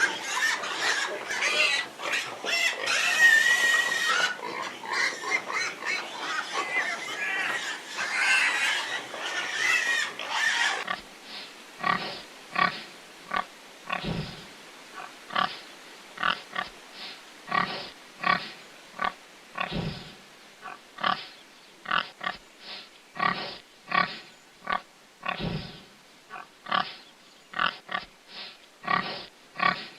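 Pigs squealing and grunting together, shrill and dense, for about eleven seconds. Then it changes abruptly to a single pig's short grunts, repeated about once or twice a second.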